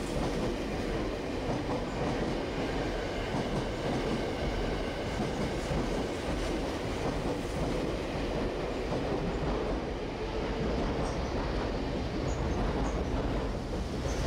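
An 8000-series electric commuter train departing, its cars running close past with wheels clacking over rail joints and a steady rumble, and a faint whine over it.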